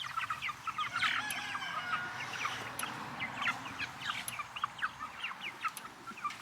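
A flock of meat chickens calling, with many short cheeps and clucks overlapping several times a second.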